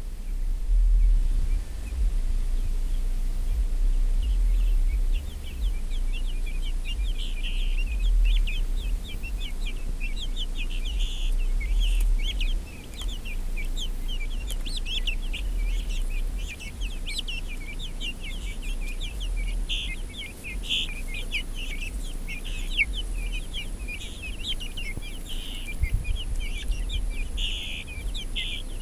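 A flock of young chickens peeping and cheeping continuously, many short high chirps overlapping, starting about four seconds in. A steady low rumble runs underneath.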